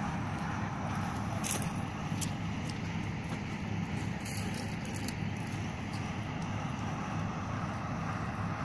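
Several hydraulic excavators' diesel engines running together in a steady, even drone, with a few faint ticks.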